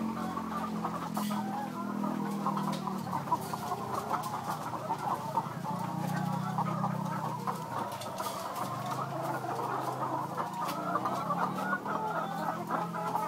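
Many chickens clucking at once in a continuous, overlapping chatter, over a low steady hum.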